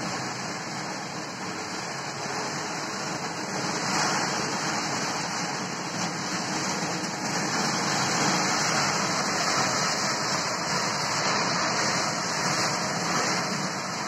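Heavy storm rain pouring down in a steady rush, with the hiss of vehicles driving through water on the flooded road.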